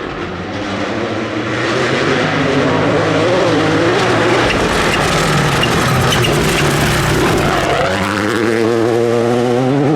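Turbocharged rally car at full attack, its engine note wavering with the revs under a broad hiss of tyres and gravel. About eight seconds in the hiss thins, leaving the engine note clear, and it rises near the end.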